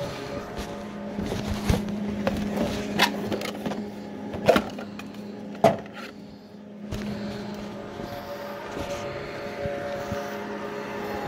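A steady low electrical hum, with several sharp knocks and footsteps on wooden floorboards as someone walks about.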